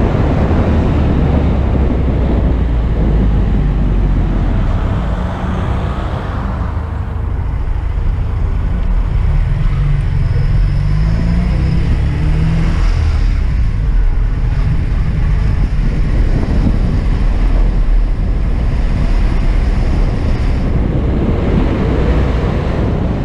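Alfa Romeo Spider's engine running as the car drives along, heard from on board over a steady low rumble of road and wind. The sound fades out at the very end.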